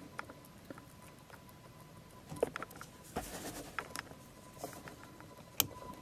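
Camera handling noise: scattered small clicks and knocks, the sharpest one shortly before the end, over a faint steady high tone.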